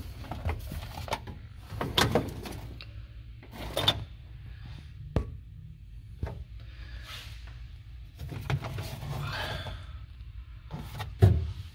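Handling sounds in a car trunk: a string of clicks and knocks with a stretch of rustling as hands move the jack and spare tire, ending in a louder thump near the end.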